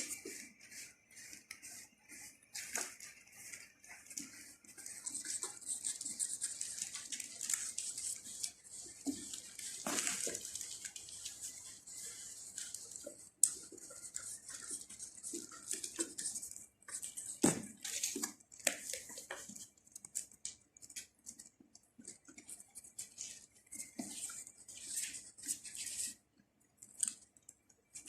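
A cat eating: irregular crisp crunching and clicking, with a few louder knocks.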